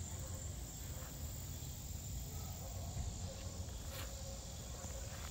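Insects chirring steadily in one even, high-pitched tone, over a constant low rumble on the microphone, with a faint single tick about four seconds in.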